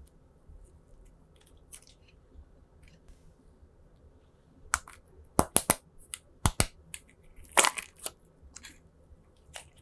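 Slime being handled, with a few faint clicks at first, then a run of sharp pops and crackles about halfway through.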